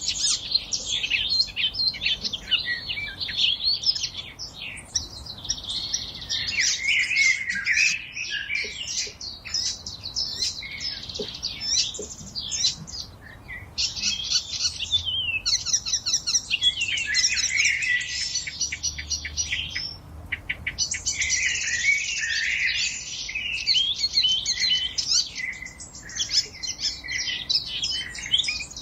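A chorus of several songbirds singing at once, with overlapping high, rapid chirps and trills that barely pause.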